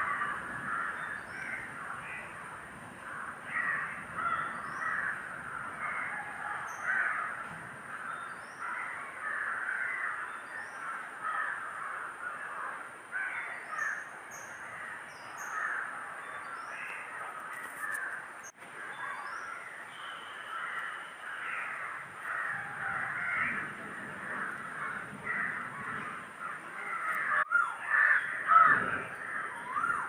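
A dense chorus of birds calling over one another, dominated by harsh crow-like caws, with scattered higher chirps and a thin steady high tone behind. One call near the end stands out louder.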